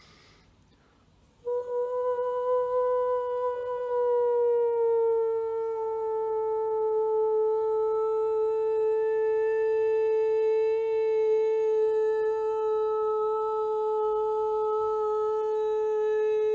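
A woman's voice holds one long sung tone in overtone singing of a mantra. The tone begins about a second and a half in, dips slightly in pitch, then holds steady while different upper overtones stand out in turn.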